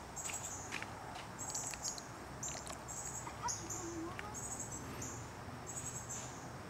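High-pitched chirping repeated about twice a second, each chirp short and trilled, with a few faint clicks scattered through.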